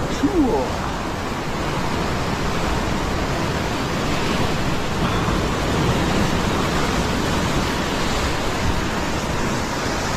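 Ocean surf breaking and washing over rocks below, a steady rushing hiss, with wind on the microphone. A short pitched sound comes right at the start.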